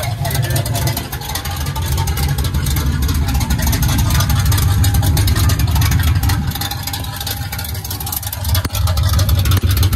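1979 Chevrolet Camaro's engine running at idle on its first start-up, a steady low exhaust rumble with dense firing pulses. It eases off a little about seven seconds in, then picks up again near the end.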